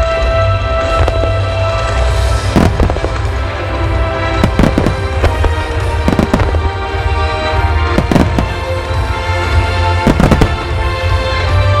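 Large aerial fireworks shells bursting with sharp cracks, about one every second or two, over music with long held notes.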